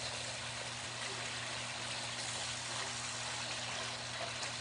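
Lemongrass spice paste and sauce sizzling in a hot wok while it is stirred with a wooden spoon: a steady hiss, with a low steady hum underneath.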